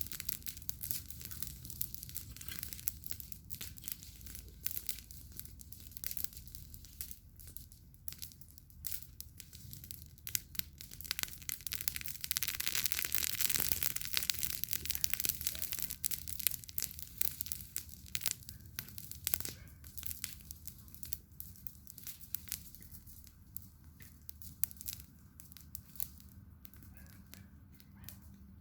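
Campfire of burning wood crackling, with frequent irregular sharp pops. About halfway through it flares into a louder hiss for a few seconds.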